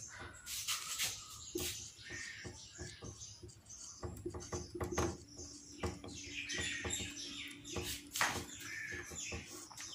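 Small birds chirping in the background, faint, with scattered light clicks.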